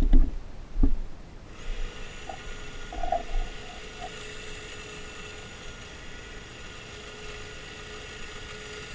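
Makita DUN461WZ 18 V cordless long-reach hedge trimmer running, its motor and reciprocating blades giving a steady whine that starts about a second and a half in. A couple of clicks come just before it starts.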